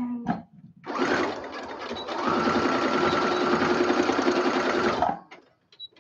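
Brother electric sewing machine stitching, after a few light clicks: the motor starts about a second in, runs a little slower at first, then steady and faster, and stops about five seconds in.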